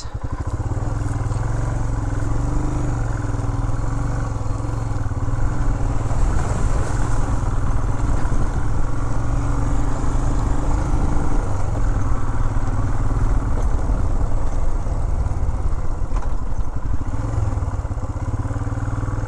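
Royal Enfield Himalayan's 411 cc single-cylinder engine running steadily as the motorcycle rides along a dirt track.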